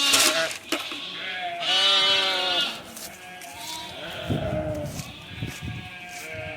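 Katahdin hair sheep bleating: one loud, wavering bleat about two seconds in, then fainter bleats from the flock.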